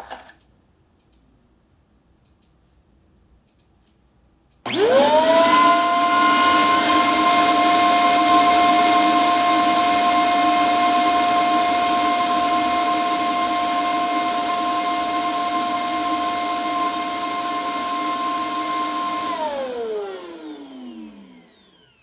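Self-emptying base station of a Light 'n' Easy robot vacuum: its suction motor spins up quickly about five seconds in and runs loud and steady with a whine, emptying the docked robot's dustbin. Near the end it switches off and winds down with a falling whine.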